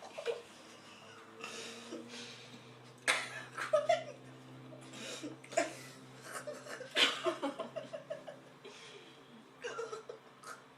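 Breathy laughter and giggling in short bursts from people eating raw lemons, mixed with sharp breaths.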